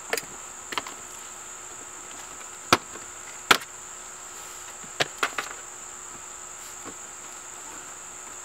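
Sharp clicks and knocks, about seven scattered through, the loudest two near the middle, as hands work at plastic interior trim under a car's dashboard. A steady high-pitched insect drone, crickets, runs behind.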